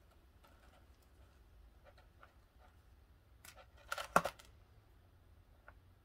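Needle-nose pliers working a thin craft wire beside two beads: a few faint clicks, then a quick cluster of sharp metal clicks about four seconds in.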